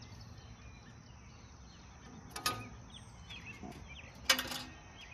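Two sharp metallic clinks about two seconds apart, each ringing briefly, from a hand tool knocking against the metal parts of a Farmall A tractor. Faint bird chirps in the background.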